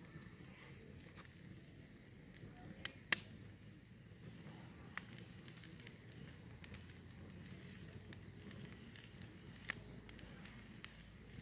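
Split firewood burning in a steel campfire ring, crackling with scattered sharp pops at irregular intervals, the loudest about three seconds in, over a low steady rumble.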